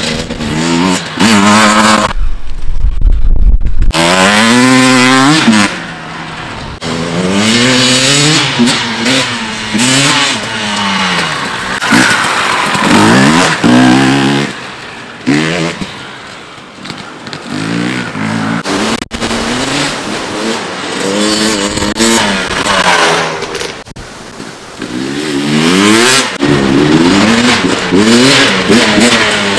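KTM 250 TPI two-stroke enduro motorcycle being ridden, its engine revving up and falling back again and again as the throttle is worked. About two seconds in there is a short lull of a couple of seconds with only a low rumble.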